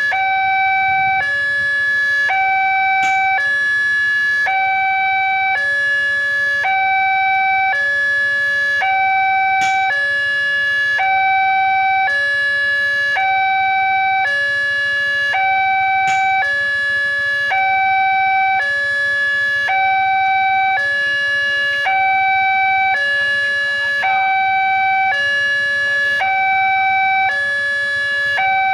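Railway level-crossing warning alarm sounding from the pole-mounted loudspeaker. It is an electronic two-tone sound that alternates steadily between a higher and a lower note, each held under a second, and it means the barrier is down for an approaching train.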